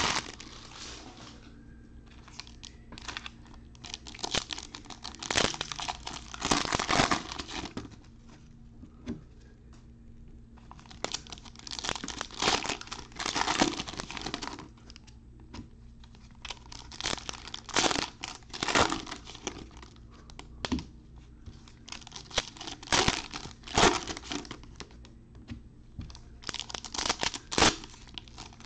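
Foil trading-card pack wrappers being torn open and crinkled by gloved hands, in repeated bursts of crackling every few seconds.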